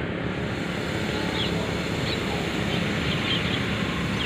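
Passenger train coaches rolling slowly past on the rails with a steady rumble of wheels. From about a second and a half in, a few short, falling high-pitched chirps sound over it.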